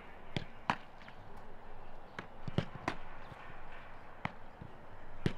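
Footballs being struck on a training pitch: about seven sharp thuds at irregular intervals, the loudest a little past halfway and near the end.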